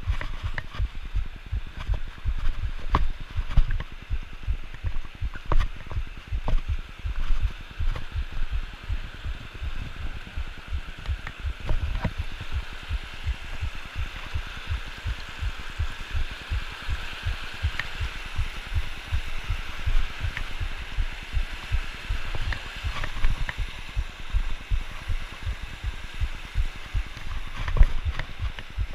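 Mountain creek rushing over rocks, a steady hiss of whitewater. Over it come frequent low thuds and occasional sharp knocks from walking over the rocky creek bed, which jostles the camera.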